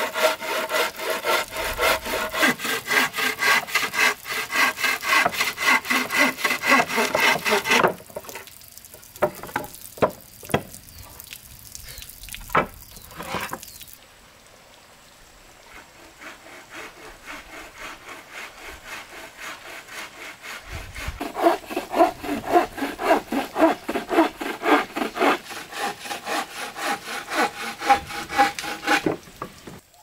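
Metal-framed bow saw cutting through an old wooden plank in quick back-and-forth strokes. The sawing stops about eight seconds in, a few sharp knocks follow, and sawing starts again for most of the last third.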